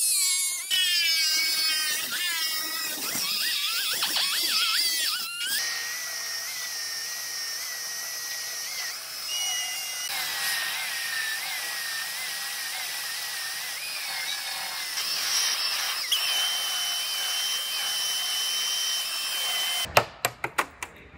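Pneumatic air tools cutting into the steel rocker panel of a car body: a cutoff wheel whining, its pitch wavering as it loads and unloads in the metal, then an air belt sander running at a steady high whine. Near the end a quick run of sharp hammer blows on the sheet metal.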